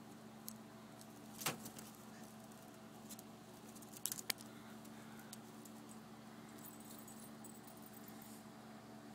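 A few light metallic clicks and rattles of a wire pet cage, the loudest about a second and a half in and a quick cluster around four seconds, over a faint steady hum.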